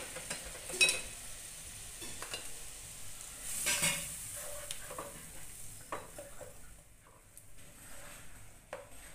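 A spatula stirring a watery masala gravy in a nonstick kadhai, with scattered scrapes and knocks against the pan. Under them is a sizzle from hot water added to the hot fried masala, fading over the last few seconds.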